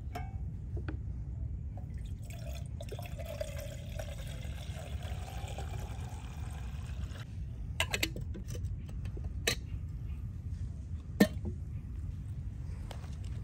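Liquid being poured into a cooking vessel for about five seconds, its pitch rising slightly as it fills, over a steady low rumble. Then come three sharp knocks, about a second and a half apart.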